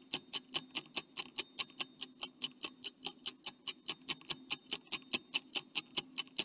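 Clock-ticking sound effect for a quiz countdown timer: sharp, evenly spaced ticks, about four to five a second, over a faint steady hum.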